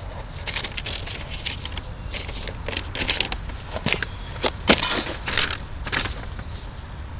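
Irregular rustling, crackling and clicking of a person moving about and handling things, with a louder cluster of clicks about five seconds in.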